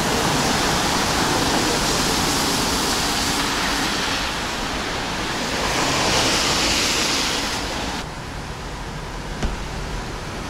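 Traffic hiss of car tyres on a wet road, swelling twice as cars pass and dropping off suddenly about eight seconds in.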